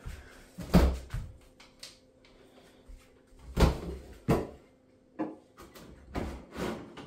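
Kitchen cupboard and appliance doors being opened and shut during a hurried search: a series of separate knocks and thumps, the loudest about three and a half seconds in.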